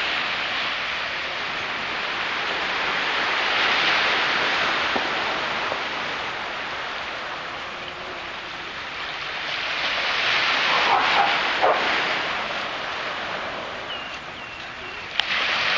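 Small waves washing onto a sandy beach, the wash swelling and fading; about eleven seconds in a dog barks twice.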